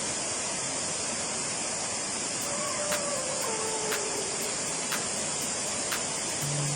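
Waterfall rushing steadily, with faint ticks about once a second.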